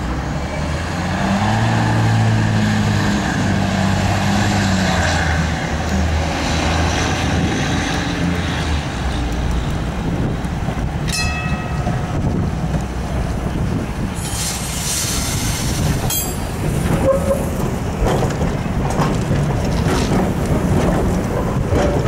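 Heritage electric tram passing close by on street track. It runs with a steady low hum and a rumble of steel wheels on the rails, with a few sharp clicks as it goes by.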